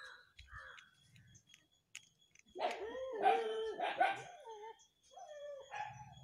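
A dog barking, a quick run of barks about two and a half seconds in and a shorter pair near the end, over faint crunching and clicking of a cat chewing a lizard.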